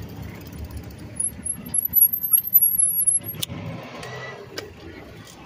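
Riding sound of a bicycle on a concrete sidewalk with street traffic running beside it: a steady low rumble, a thin high wavering squeal lasting about two seconds from a second in, and a sharp click just past the middle.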